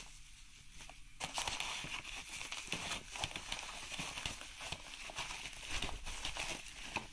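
Plastic bubble wrap crinkling and crackling as it is handled and lifted out of a polystyrene foam packing box. The crackling starts about a second in and keeps going as a dense run of small crackles.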